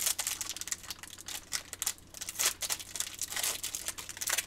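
Foil wrapper of a Panini Prizm football card pack crinkling in a rapid run of crackles as it is handled and torn open.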